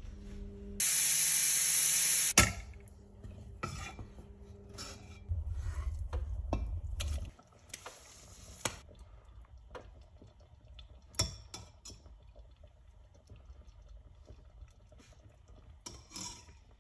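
Steel pressure cooker on an induction hob hissing loudly as it vents steam for about a second and a half, over a low steady hum. Then a ladle clinks and scrapes against the steel pot and a serving bowl as the lentil curry is stirred and served.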